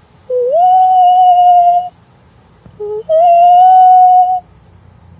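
A person's voice imitating the wail of a common loon in a high falsetto from the back of the throat. There are two long calls, each starting on a lower note, stepping up and holding a steady, pure-sounding tone for over a second.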